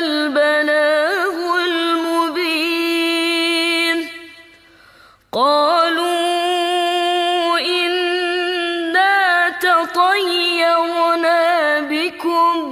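A woman chanting the Quran in the melodic murottal style, holding long notes with wavering ornaments. The first phrase fades away in an echo about four seconds in, and after a breath she starts a new drawn-out phrase.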